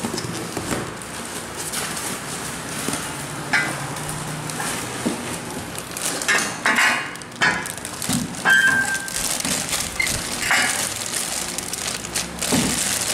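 Handling noise of white-painted metal rail and bracket parts being moved on a tile floor: irregular knocks, clinks and scraping, with a brief squeak a little past the middle.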